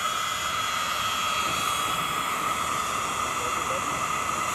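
FiAir handheld electric air blower running steadily: an even whine with a rush of air, blowing onto burning Stump Chunks in a fire pit to fan the flames so the wood catches.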